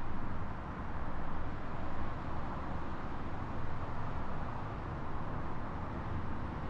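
Steady outdoor background rumble with a soft hiss, gently rising and falling in level, with no distinct events.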